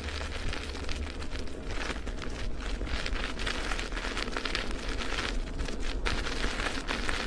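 Wheels crunching over a gravel trail surface in an uneven crackle, with a steady low rumble underneath.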